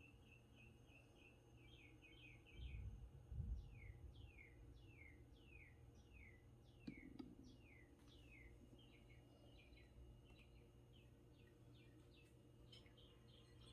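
Faint bird song: a run of short chirps, each sliding down in pitch, about two a second, with a brief low rumble a few seconds in.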